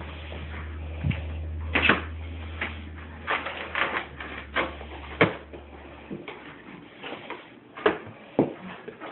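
Cardboard packaging being handled and opened: a string of irregular clicks, knocks and rustles, over a low hum that stops about six seconds in.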